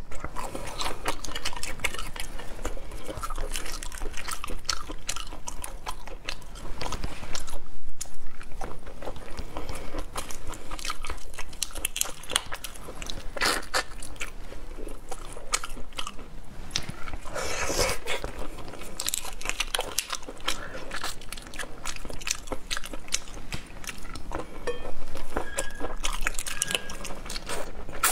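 Close-up eating sounds of large red shrimp: shells cracked and peeled by hand, and the shrimp bitten and chewed, in irregular crunchy bursts.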